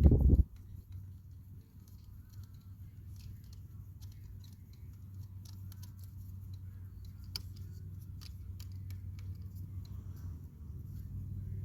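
A thump at the start, then scattered small clicks and ticks of hand work with a screwdriver, fastening the replacement controller onto the e-bike frame, over a steady low rumble.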